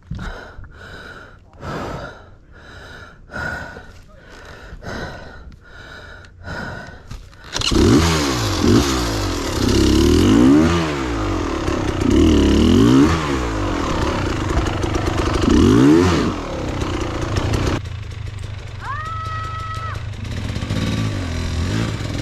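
Heavy, rapid breathing of an exhausted rider, about one breath every two-thirds of a second. About seven seconds in, a Beta Xtrainer 300 two-stroke dirt bike engine cuts in loudly, its revs rising and falling over and over, then drops to a lower level near the end before revving up again.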